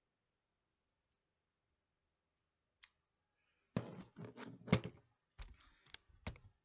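Handling noise: near silence, one faint click, then from about four seconds in a run of sharp clicks, knocks and rustling as hands move a crocheted yarn piece about against the camera.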